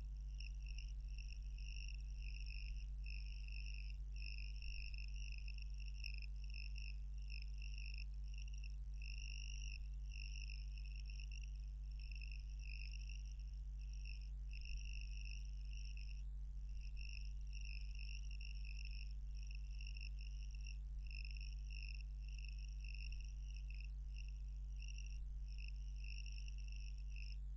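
Insects chirring steadily in short pulses, with a steady low electrical hum underneath.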